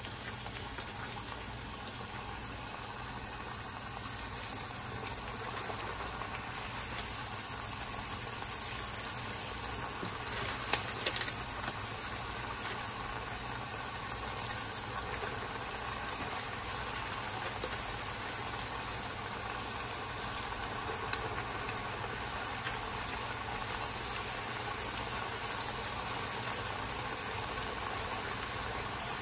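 Chekkalu discs deep-frying in hot oil in a steel kadai: a steady sizzle, with a few brief louder spikes about ten seconds in as more discs go into the oil.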